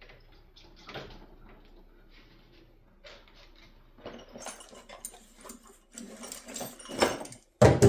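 Rubber lower radiator hose being worked off an aluminum radiator outlet: scraping and light knocks, then a denser rushing noise in the last few seconds, and one loud knock near the end.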